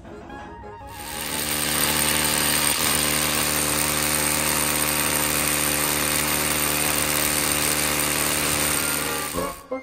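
Handheld electric drill with a masonry bit boring into a stone block: a steady motor whine over a grinding noise, starting about a second in and cutting off abruptly just before the end.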